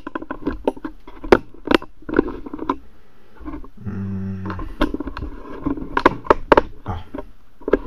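Razor strokes cutting through lathered beard stubble, making a run of crackling, scratchy strokes. A brief steady low hum comes about halfway through.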